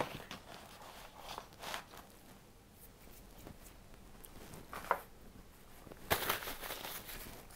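Handling noise as the pizza on its cardboard box is picked up and moved: scattered light taps and rustles, with a louder rustling scrape about six seconds in.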